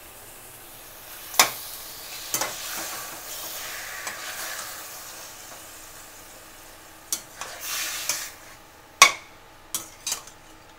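Chicken pieces sizzling in a stainless steel pan while a metal slotted spatula stirs them, clinking and scraping against the pan about eight times. The loudest clinks come about a second and a half in and near the end.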